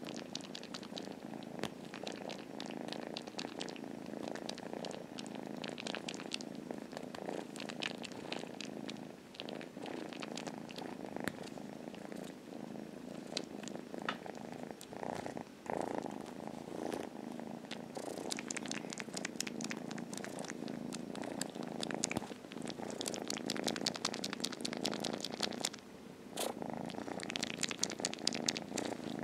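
Ginger-and-white kitten purring steadily close to the microphone, with many quick wet smacking clicks as it suckles and kneads on a sweater as if nursing, which the owner takes as a sign it misses its mother.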